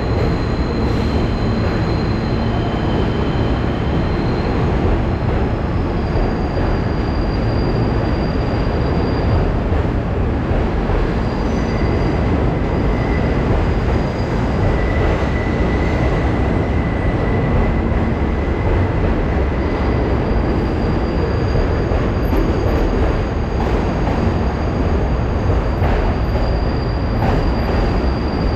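Rail vehicle running on steel wheels: a steady loud rumble, with high-pitched wheel squeals that come and go.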